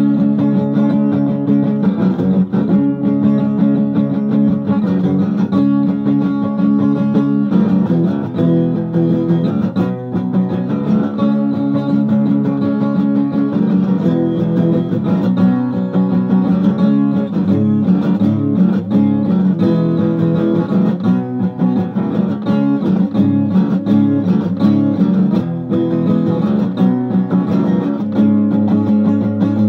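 Guitar being played continuously: fretted chords strummed and picked, ringing on through chord changes.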